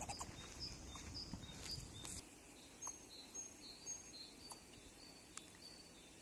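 A run of short, thin, high-pitched calls, about two or three a second, with a few faint clicks. A low rumble underneath stops about two seconds in.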